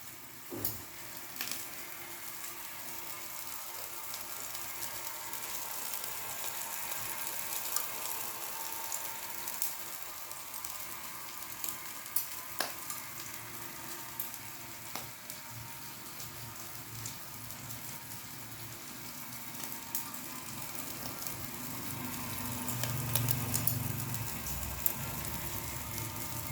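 Chicken roasting on an electric rotisserie grill: steady sizzling with scattered crackles and pops. A low hum comes up near the end.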